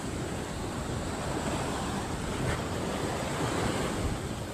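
Small waves washing up onto a sandy beach: a steady, even wash of surf.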